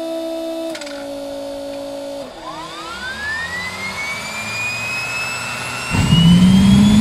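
AI-9 helicopter APU gas turbine starting. A steady hum steps down in pitch and stops, then a rising whine sets in as the turbine spools up. About six seconds in, the fuel lights with a sudden loud roar, its low tone rising.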